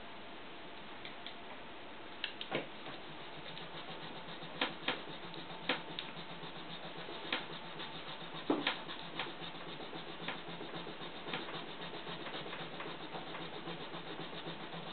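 Dry rubbing on a wooden table tennis blade as it is cleaned, with irregular sharp clicks and knocks scattered through it and a busier scratchy rubbing from about four seconds in.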